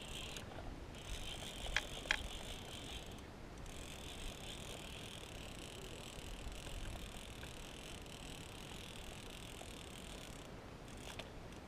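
Line-counter baitcasting reel being cranked to reel in a hooked trout, a steady mechanical reel sound that stops briefly three times as the cranking pauses. Two sharp clicks come about two seconds in.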